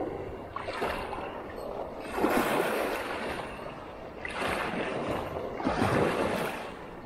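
Small waves washing in against a groyne, heard as four surges of hiss, each about a second long. The second and the last surge are the loudest.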